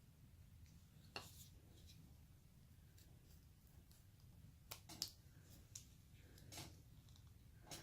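Faint, sparse small cuts and scrapes of a carving knife picking at basswood: a handful of short sharp clicks and scrapes, the loudest about five seconds in, over a low steady hum.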